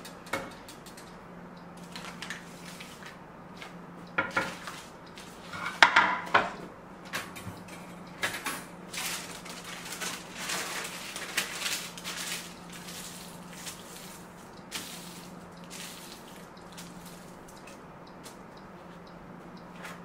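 Kitchen-counter handling noises: sharp knocks and clatter of wooden cutting boards and a knife being moved and set down, with a denser stretch of rustling and clatter in the middle as the butter's wrapping is handled. A steady low hum runs underneath.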